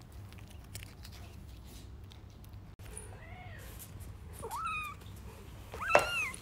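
Kitten meowing three times, short high calls that rise and fall in pitch, starting about three seconds in, the last one the loudest.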